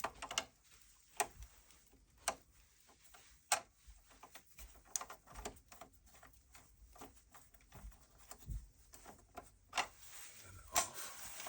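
Scattered light clicks and knocks at an irregular pace, roughly one or two a second, a few of them louder.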